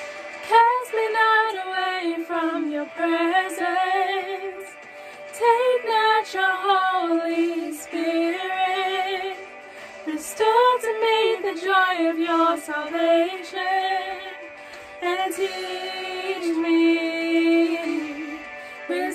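Two women singing a worship song together in two-part harmony, in phrases of a few seconds each.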